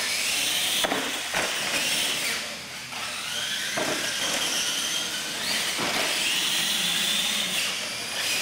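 Radio-controlled monster trucks racing, their electric motors whining and rising and falling in pitch with the throttle. Several sharp knocks come as the trucks hit ramps and land jumps.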